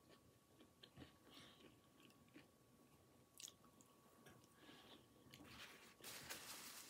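Faint mouth sounds of a person biting into and chewing a small yellow pepper, with small soft clicks and a sharper bite about three and a half seconds in. A brief hiss of breath or rustle comes near the end.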